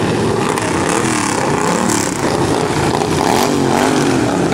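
Several racing lawnmower engines running hard around a dirt oval, their pitches rising and falling as they rev up and ease off through the turns, with two mowers passing close by near the end.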